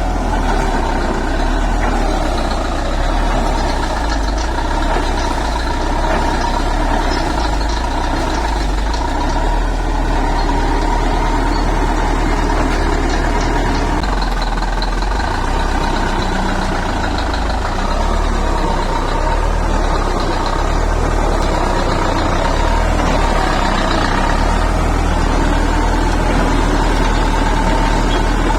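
Bulldozer's heavy diesel engine running steadily with a deep, continuous rumble.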